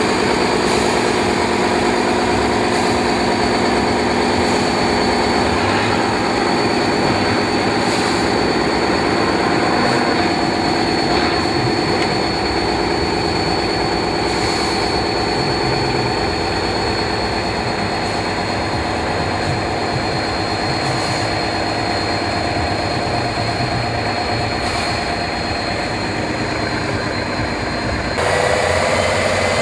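Heavy truck-trial truck's diesel engine running at low, steady revs as the truck crawls over rough sand, with a thin steady high whine over it. Near the end it cuts abruptly to a louder engine.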